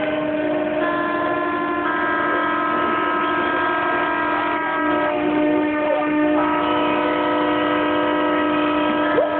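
Several ship horns sounding together in long, overlapping steady blasts of different pitches, some horns stopping as others start.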